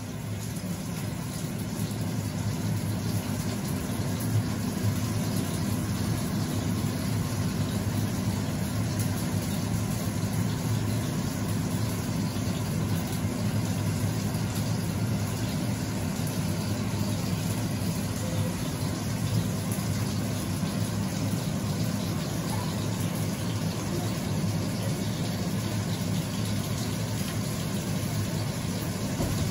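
Salter hot air fryer running at 200 °C, its circulating fan giving a steady low hum.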